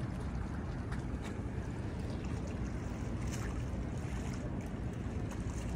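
Wind buffeting the microphone, a steady low rumble, with sea water lapping against a concrete pier and a few faint ticks.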